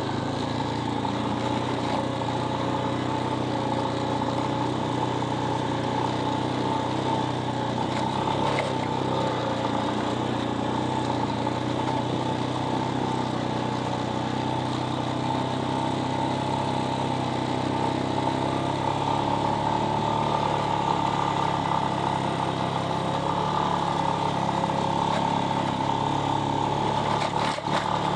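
Vehicle engine running steadily while driving, its pitch holding fairly even throughout.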